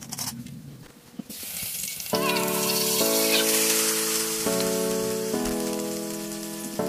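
Metal spatula clicking against an aluminium wok, then about a second in a steady hiss and patter as washed, shelled peanuts are tipped from a plastic basket into the wok. Background music with sustained chords runs under it.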